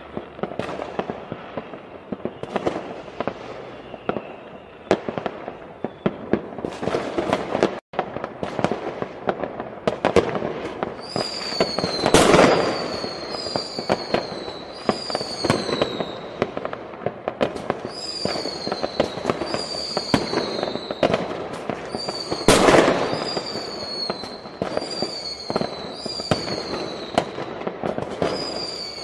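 Fireworks going off in many overlapping pops and bangs, with two louder booms, one near the middle and one about three-quarters through. From about a third of the way in, a falling whistle repeats roughly once a second over the bangs.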